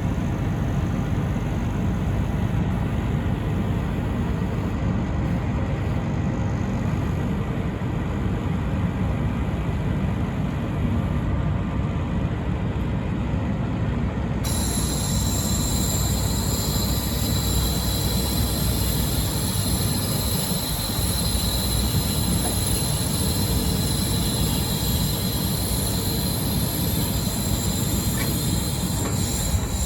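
Wirtgen W200i tracked cold planer running, a steady heavy diesel-machine rumble. About halfway through, a high-pitched hiss and whine abruptly joins it.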